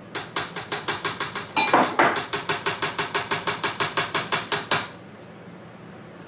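A spoon tapping rapidly against the top of a Vitamix blender container, about six taps a second, to knock sticky honey off into the jar. The tapping stops abruptly about five seconds in.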